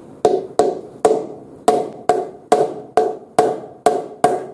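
Hammer striking a bent metal plate on a concrete slab, about ten ringing blows at roughly two a second: the motorcycle's rear-axle holding plate is being straightened after overtightened chain-adjuster nuts bent it inward.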